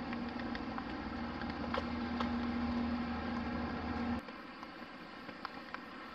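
A vehicle running with a steady hum: one held tone over a low drone, scattered with small clicks and rattles. About four seconds in the hum cuts off abruptly, leaving a quieter background of faint ticks and a thin high hiss.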